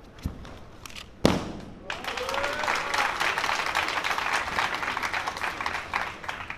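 A single loud sharp sound about a second in, then a crowd applauding with some cheering for about four and a half seconds, fading near the end.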